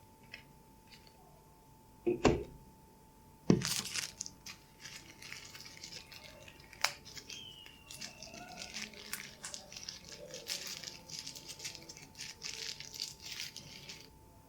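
Two thumps, about two and three and a half seconds in, then a long stretch of irregular crinkling and rustling with light clicks: packaging being handled during an unboxing.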